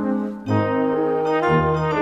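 Slow instrumental theme music of held brass chords. The music dips briefly just before half a second in, then moves on to new chords about once a second.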